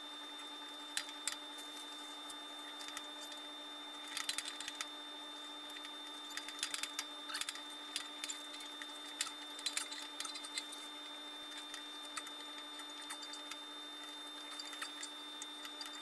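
Faint, irregular small clicks and taps of hands working a new tire onto a JET 18-inch bandsaw's upper wheel, over a steady faint hum.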